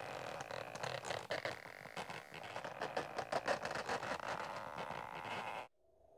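Cartoon sound effect of a cocoon wrapping around a body: a dense run of crackling, scraping clicks that cuts off suddenly about a second before the end. A faint steady tone is left after it.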